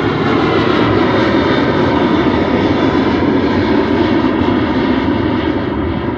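Jet engines of a Southwest Boeing 737 airliner climbing out just after takeoff: loud, steady engine noise with faint steady tones running through it, easing off slightly near the end.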